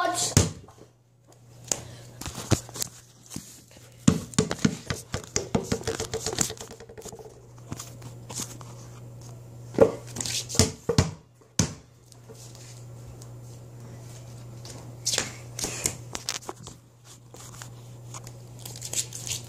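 Basketball bouncing on a hardwood floor close by: sharp thuds in uneven runs, some quick and close together, others single and loud. A steady low hum runs underneath.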